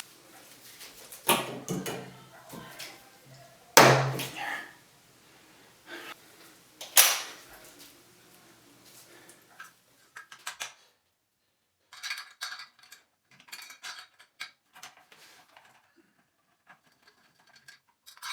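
Light metal and plastic clinks and taps from hand tools and parts working a new Moen shower valve cartridge and its retaining clip into place. Three sharper knocks come in the first seven seconds, then a run of small quick clicks.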